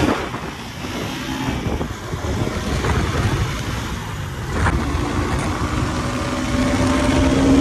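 Motorcycle riding along a road: wind rushing over the microphone with the engine running underneath. A steady engine note comes through in the second half, rising slightly near the end.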